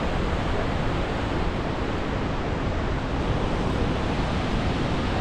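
Victoria Falls' great waterfall of the Zambezi, heard close up in its spray: a steady, unbroken rush of falling water.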